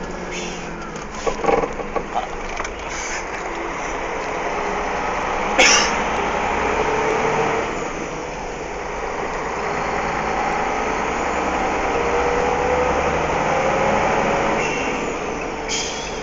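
Truck engine and road noise heard from inside the cab while driving, the engine note climbing slowly as the truck picks up speed. A short sharp burst of noise comes about five and a half seconds in, and a few light clicks come in the first few seconds.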